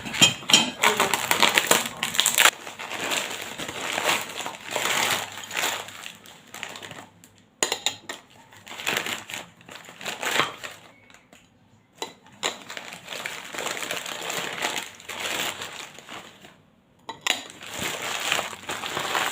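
Packaging crinkling and rustling in irregular bursts as newly bought bowls are unwrapped by hand, with short pauses between handfuls.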